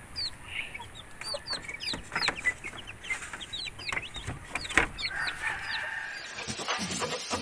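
Game fowl chicks peeping: many short high calls, each falling in pitch, scattered through, with a few light knocks.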